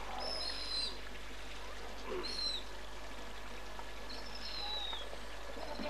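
Three short, thin, high-pitched chirps, each falling slightly in pitch, over a steady hiss.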